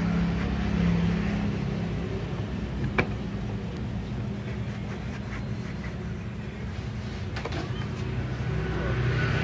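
Steady low hum of an engine running, with a single sharp click about three seconds in.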